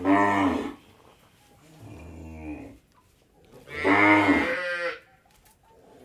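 Dairy cows mooing three times: a loud moo at the start, a fainter one about two seconds in, and another loud, longer moo about four seconds in.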